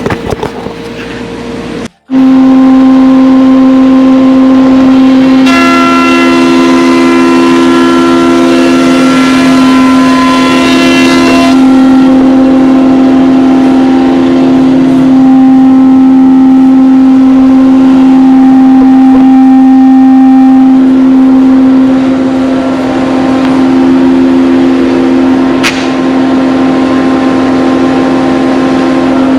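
Thickness planer running with a loud, steady motor whine that starts abruptly about two seconds in. From about five to eleven seconds a hiss of cutting rises over it as the oak board is planed to a slope.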